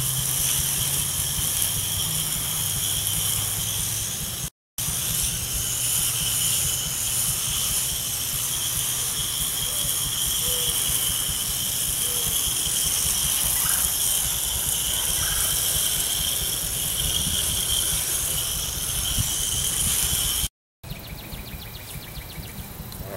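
Steady hiss of a garden hose spraying insecticide through a hose-end sprayer onto a shed wall. The hiss breaks off abruptly twice.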